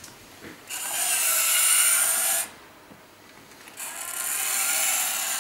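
Small electric tipping motor of a Siku Control radio-controlled Krampe tipper trailer, fitted with the mechanism of a two-way tipper, whining as it raises the body to dump completely. It runs twice, about two seconds each, with a short pause between.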